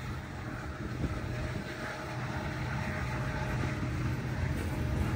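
Diesel freight locomotive approaching, its engine a low steady rumble that grows slowly louder.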